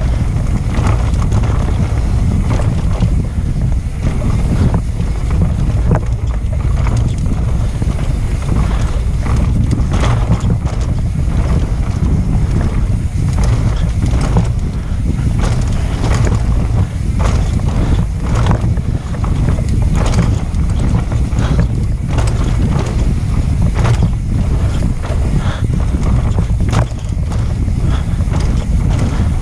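Wind buffeting the microphone of a mountain bike's action camera on a fast descent over a dirt trail. Frequent short rattles and knocks come from the bike as it runs over the rough ground.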